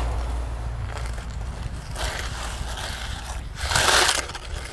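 Child's plastic snow shovel scraping and scooping in a sand pile, with one louder scrape and swish of flung sand about three and a half seconds in, over a low rumble.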